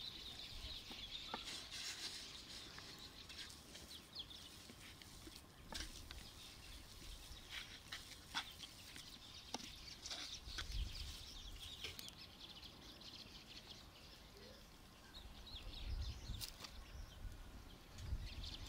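Faint outdoor ambience of birds calling, with scattered soft clicks and squelches from hands mixing minced meat on a wooden plate, and an occasional low rumble of wind on the microphone.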